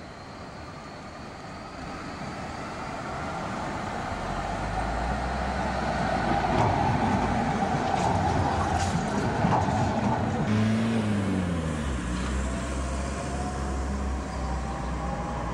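Electric tram passing close by on street track: the running noise builds to a peak as it goes past, with a few sharp clicks. As it draws away, a motor whine drops in pitch, and a faint rising whine follows near the end.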